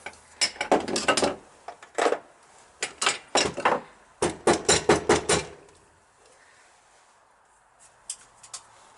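Small metal hand tools and parts clinking and clattering as they are picked up and put away on a workbench: a quick run of knocks for the first five seconds or so, then quieter, with a few faint clicks near the end.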